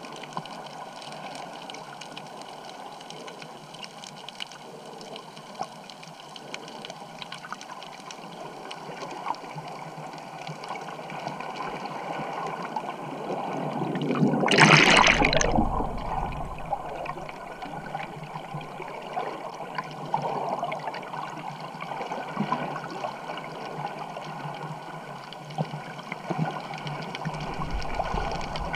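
Water sounds heard underwater: a steady muffled swirl of moving water with scattered small clicks. About halfway through comes a loud rush of bubbles lasting a couple of seconds.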